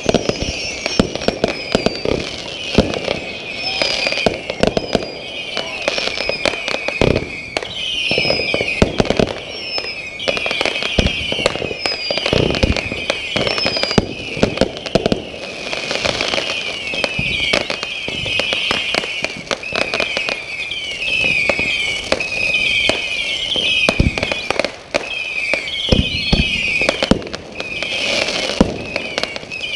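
Aerial fireworks firing in quick succession: a continuous string of bangs, pops and crackles from shells launching and bursting, with high whistling tones over them.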